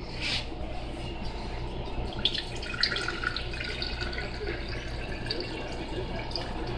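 Water being poured in a stream into a drinking glass and splashing in it, starting about two seconds in.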